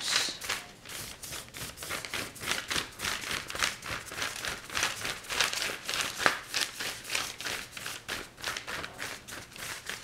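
Paintbrush working paint onto the picture: quick scratchy strokes and dabs, several a second, uneven in loudness.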